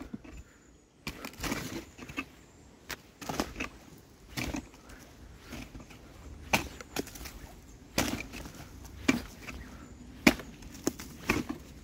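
A wooden stick striking a dead, rotting tree stump again and again: a dozen or more sharp wooden knocks with splintering, spaced unevenly, roughly one a second.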